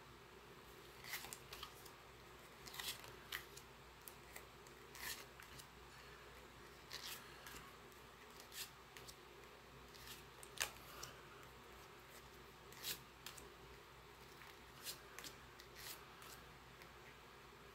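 Pokémon trading cards being flipped through one at a time in the hands: faint, brief card slides and snaps every second or two, some in quick pairs, over a quiet room hiss.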